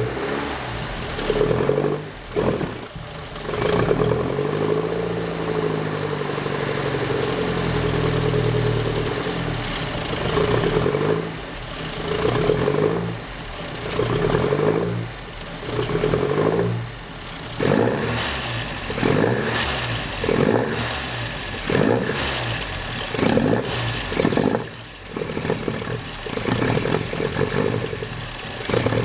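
Alfa Romeo Giulia Super's four-cylinder engine running roughly while being warmed up, its revs surging and falling unevenly with several brief drops in loudness. The roughness comes from an ignition fault the owner suspects, with sparks sometimes missing.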